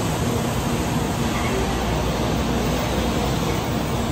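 N700-series Shinkansen train moving slowly along the platform as it pulls in: a steady running noise of the passing cars with a faint hum.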